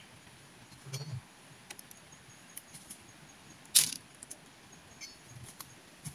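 Metal tools being handled: a soft thump with light clicks about a second in, a few small clinks, and one sharp metallic clatter nearly four seconds in. A faint, steady, high insect drone runs underneath.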